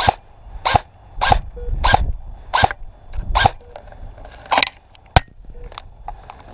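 A dog barking repeatedly, about seven barks roughly two-thirds of a second apart, followed by a single sharp click a little after five seconds in.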